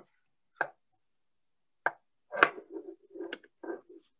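A series of short knocks and taps from hands working material onto a hook held in a fly-tying vise, the loudest about two and a half seconds in.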